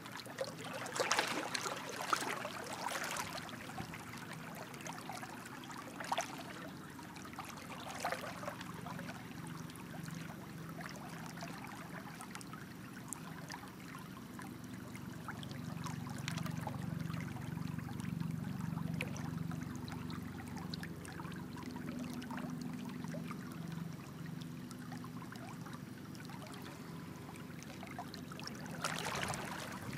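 Floodwater flowing steadily along a submerged road and against the edge of a rice paddy, a continuous rushing and trickling, with a few faint knocks in the first several seconds.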